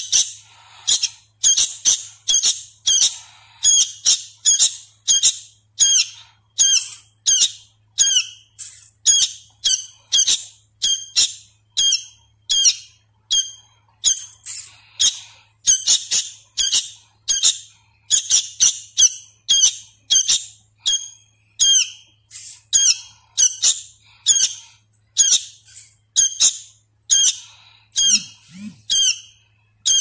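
Sooty-headed bulbul fledgling calling over and over, short high chirps about twice a second: a hand-fed young bird still learning its song.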